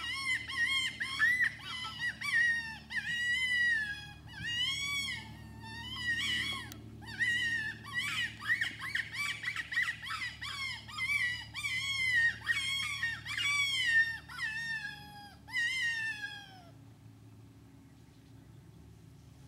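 Predator call sounding a run of high-pitched, squealing distress cries, roughly one or two a second, each arching up and down in pitch, used to lure coyotes in. The cries stop a few seconds before the end.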